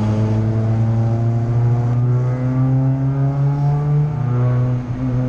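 Peugeot 208 Racing Cup car's turbocharged four-cylinder engine pulling under load, heard from inside the cockpit, its pitch slowly rising. The pitch drops about four seconds in, and the sound dips briefly about a second later.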